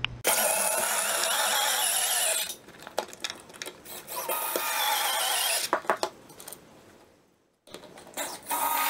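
Cordless screwdriver driving small wood screws through plastic model train track into a wooden shelf, in three runs of a second or two each, with light clicks between.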